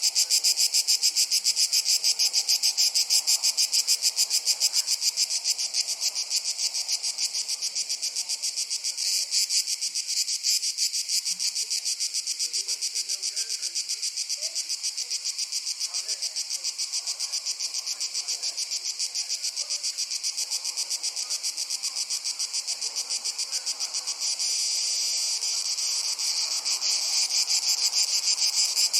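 A dense chorus of crickets chirping in a fast, even pulse, high-pitched and continuous. It is a little softer through the middle and louder again near the end.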